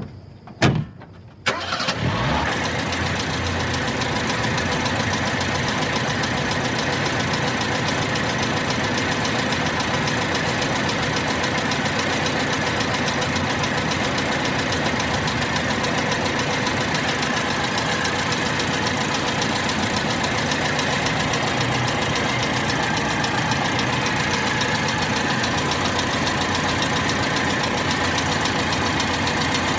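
An older car's engine starting: a sharp click, then the engine catches about a second and a half in and settles into a steady idle.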